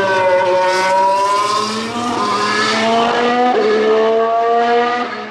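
Mercedes-AMG F1 W08's 1.6-litre turbocharged V6 hybrid engine, its pitch falling as the car slows, then rising as it accelerates, with one upshift about three and a half seconds in. The sound fades away near the end.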